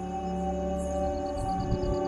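Background music: soft ambient music of long held tones, with a quick pulsing high note entering about a second in.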